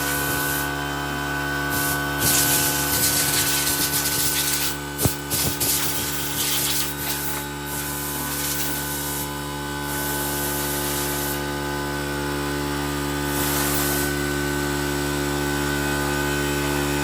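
Mini angle grinder running steadily, its disc rasping against wood in uneven bursts as the bowl is shaped, with a sharp knock about five seconds in.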